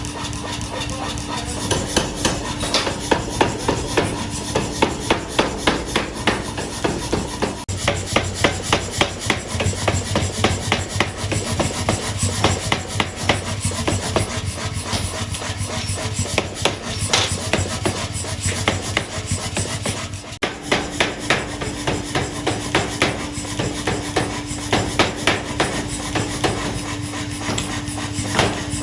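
Metal being struck repeatedly, sharp hammer blows about two to three a second, over a steady machine hum.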